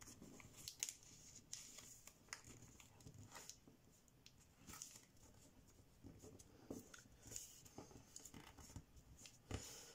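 Faint rustling and crinkling of thin kami origami paper being folded and creased by hand, with scattered small crackles.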